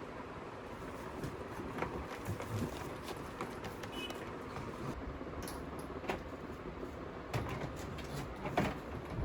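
Steady workshop background noise with scattered short knocks and clatter from handling and assembly work.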